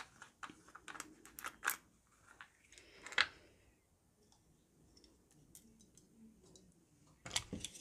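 Light clicks and ticks of a small plastic bottle cap being twisted and worked off by hand, the loudest about three seconds in, then a quiet stretch before a few more clicks near the end.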